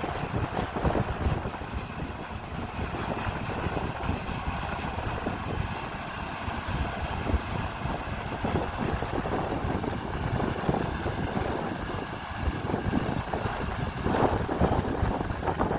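Large harvest machinery running steadily, with wind buffeting the microphone.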